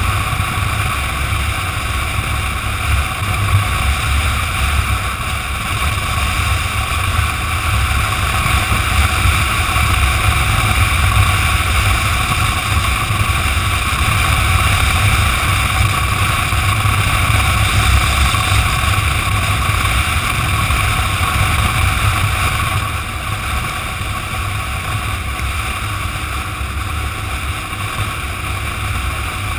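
Motorcycle at highway speed: steady wind rush buffeting the microphone, with engine and road noise underneath. It gets slightly quieter about 23 seconds in.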